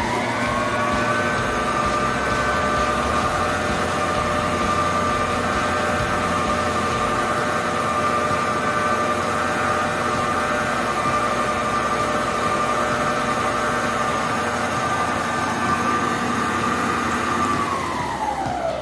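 Electrolux EKM3407R stand mixer's motor running at its third speed, a loud steady whine that reads about 78 dB at 30 cm. Its pitch settles as it spins up at the start and falls away near the end as the motor winds down.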